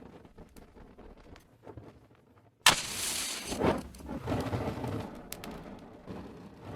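A match struck about two and a half seconds in: a sudden sharp scrape, then the hiss of the flare, which surges again about a second later and dies down over the next few seconds. A few faint ticks come before the strike.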